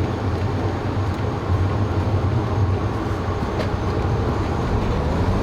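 2012 Audi S5 Cabriolet's supercharged V6 and road noise at a steady cruise, a low drone. Near the end the engine note starts to climb in pitch as the car begins to accelerate hard.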